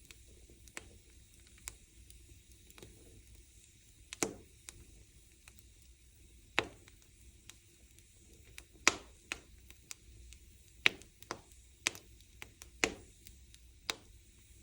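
Wood fire crackling: irregular sharp pops, about a dozen and more frequent in the second half, over a faint steady hiss.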